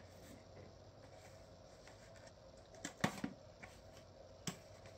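Cardboard packaging being handled and a small box opened: faint rustling, with a couple of sharp knocks about three seconds in and a single sharp click near the end.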